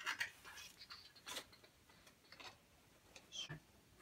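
Faint, scattered clicks and rustles of a microphone stand and its shock mount being handled and fitted together, a few short knocks about a second apart.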